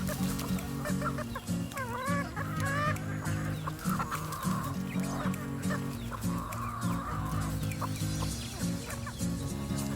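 Flock of free-range chickens clucking, with a few louder wavering squawks about two seconds in, over background music.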